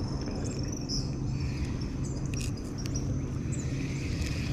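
Insects chirping in a high, wavering trill over a steady low hum.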